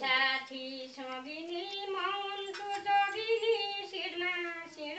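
A woman singing a Sangini, a Nepali women's folk song, in a high voice with long held notes that glide slowly in pitch.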